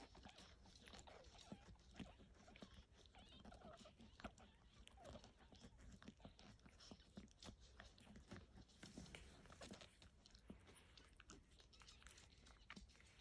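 Faint, irregular wet clicking and smacking of a newborn puppy suckling at its mother's teats.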